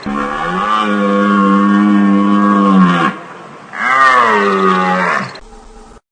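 Deer calling: two long, drawn-out moaning calls, the first about three seconds, the second shorter, each dropping in pitch as it ends.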